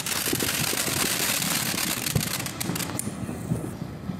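Ground fountain firework spraying sparks: a steady hiss with crackling, the high part of the hiss easing off about three and a half seconds in.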